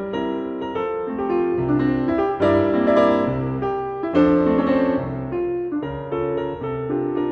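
Background piano music: a melody of piano notes with a bass line.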